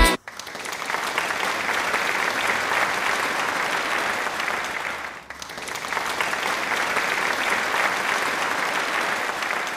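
Audience applause: steady, dense clapping that dips briefly about five seconds in, then picks up again.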